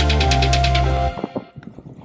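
Electronic background music with a steady beat of sustained tones and regular sharp percussion that cuts off abruptly about halfway through, followed by much quieter faint scattered ticks.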